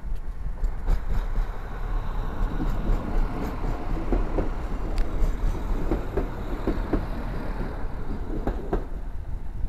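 Serbian Railways class 711 diesel multiple unit passing at close range: a steady low rumble, with a run of wheel knocks over the rail joints in the second half as the cars go by.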